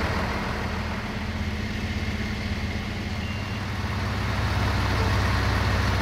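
Diesel engines of a Siemens Desiro diesel multiple unit idling at a standstill, a steady low hum that grows stronger about four seconds in.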